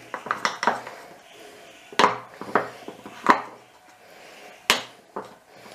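A spoon clinking and scraping against a glass bowl while stirring flour into a wet, sticky dough, with a few sharp knocks about two, three and four and a half seconds in.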